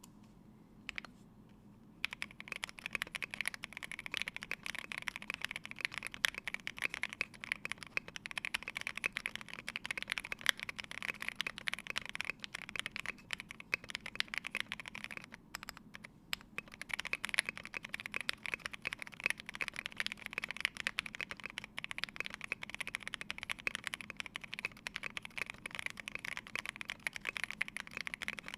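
Typing on a Polaris mechanical keyboard with lubed c3 Banana Split linear switches, a full polycarbonate plate and MT3 Serika keycaps: a dense, fast stream of keystroke clacks. It starts about two seconds in after a single keypress and thins to a brief pause about halfway.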